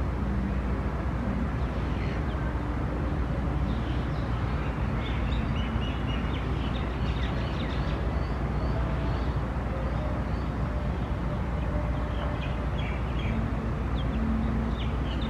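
Small birds chirping in short high calls over a steady low background rumble; the chirps come in two spells, about four seconds in and again about twelve seconds in.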